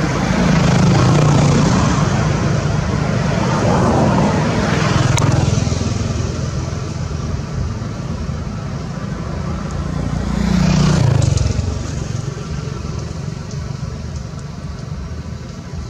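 Road vehicles passing close by, their engine and tyre noise swelling and fading three times over a steady low rumble.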